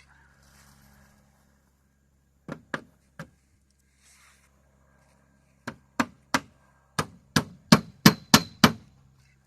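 Hammer striking wood: three blows, a pause, then a run of about nine blows at roughly three a second.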